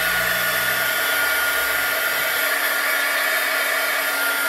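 Craft heat gun running steadily: an even rush of blown air with a thin, steady whine.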